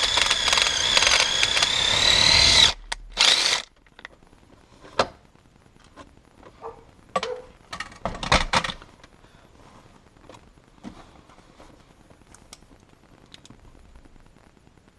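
Power drill running with a steady high whine as it drills out a shifter rivet; it stops about three seconds in, gives one more short burst, then a few light clicks and knocks follow.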